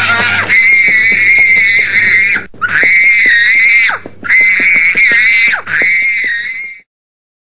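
A small child screaming in a tantrum: four long, high screams with short breaks between them, cutting off suddenly near the end.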